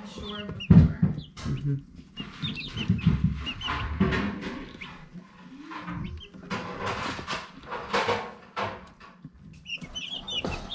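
Dominique chicks peeping in short high chirps, mixed with louder rustling and bumping from handling in their cardboard brooder box.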